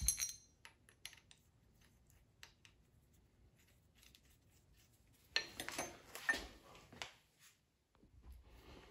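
Clinks and rattles of a steel pulley puller and its bolts being handled and set against a crank pulley: a sharp clink at the start, a few light ticks, then a cluster of metal clinks about five to seven seconds in.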